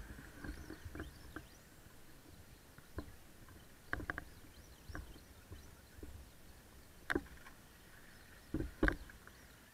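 Faint rising and falling whines of RC drift cars' electric motors, with scattered sharp clicks and knocks: a quick triple about four seconds in and the loudest pair near the end.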